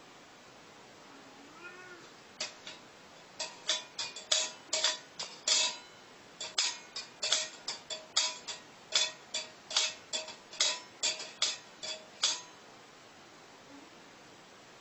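Empty stainless steel cat food bowl in its wire stand clinking and ringing over and over, some two dozen quick knocks across about ten seconds, as the cat licks and noses at it. A short, faint meow comes just before the clinking starts.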